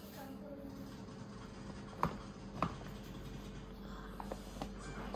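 SecretLab Titan Stealth gaming chair armrest handled by hand: two sharp clicks about half a second apart, then a few faint ticks near the end.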